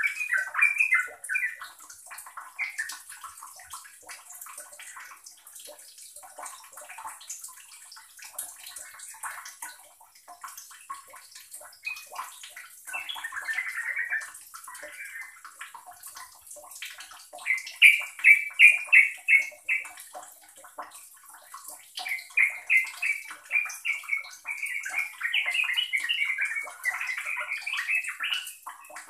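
Yellow-vented bulbul (trucukan) singing in short phrases with gaps between them. About two-thirds of the way in comes a quick run of about eight evenly spaced notes, followed near the end by a longer stretch of dense chattering phrases.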